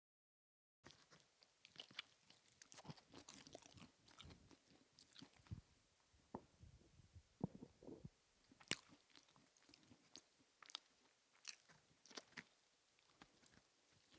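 A person chewing and biting into a packaged duck snack close to the microphone: irregular wet mouth clicks and crunchy bites, starting after about a second of dead silence.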